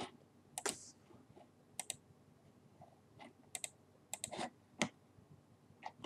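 Sparse clicking of a computer mouse and keyboard: about ten short, sharp clicks at irregular intervals, some in quick pairs.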